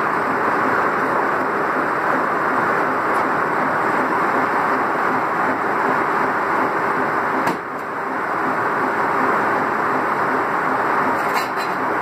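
Steam sawmill machinery running with a steady, loud noise and a faint regular pulse of about three to four beats a second, with a brief dip and a click about seven and a half seconds in.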